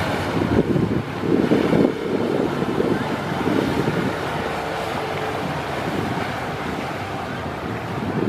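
Jet-ski-driven water jetpack running, its water jets rushing and spraying, with wind buffeting the microphone in gusts during the first two seconds.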